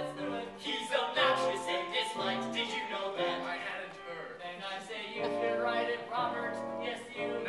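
Several boys' voices singing a cappella in parts, a musical-theatre number sung without accompaniment.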